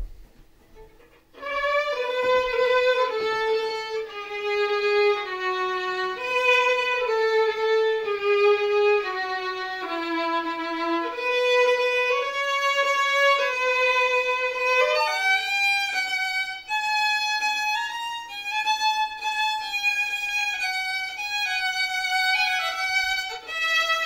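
Solo violin played unaccompanied, an improvised line of held notes starting about a second and a half in; about halfway through, the line moves up to higher notes.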